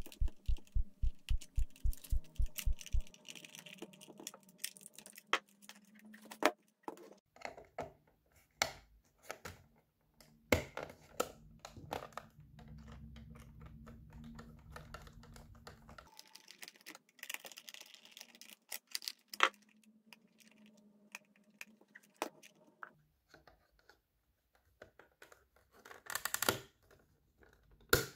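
Hard plastic clicks, taps and scrapes from a screwdriver and hands working on the case of a Panasonic RC-70 spherical clock radio during reassembly, with a denser burst of clicking near the end. A low, even thumping about four times a second runs through the first three seconds and then stops.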